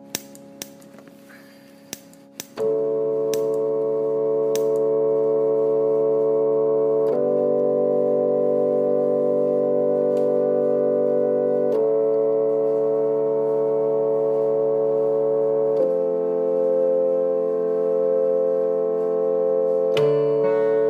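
Music: a keyboard plays long, steady held chords that change about every four to five seconds, with shorter moving notes coming in near the end. A few sharp clicks sound in the first two seconds before the chords start.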